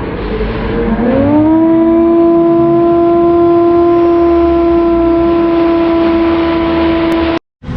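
A long horn blast, likely an air horn: one tone that slides up in pitch as it starts about a second in, then holds steady for about six seconds and cuts off abruptly. Engine rumble from off-road vehicles runs underneath.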